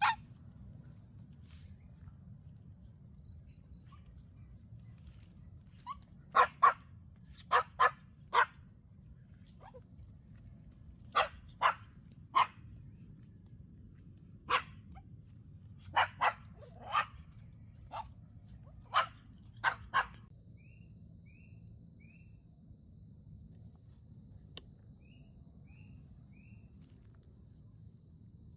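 A dog barking in short bursts of two or three barks, about sixteen barks in all, which stop about two-thirds of the way in. Insects keep up a steady high drone throughout, louder in the last third.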